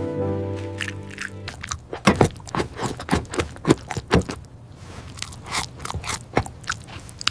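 Soft music with held notes for about the first second and a half, then close-up eating sounds: irregular crunching and chewing clicks, several a second.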